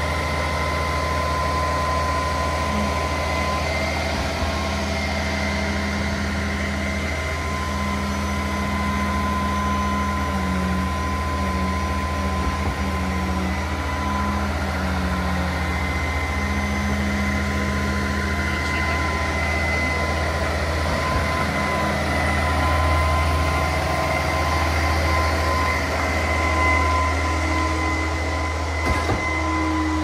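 Heavy diesel truck engine running with a steady low drone and a thin steady whine, its pitch shifting a little now and then.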